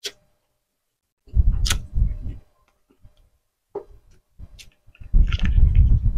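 Close-miked eating sounds: mouth smacks and chewing of grilled tuna jowl with a few sharp clicks. About a second before the end come loud low gulps as a drink is swallowed from a glass.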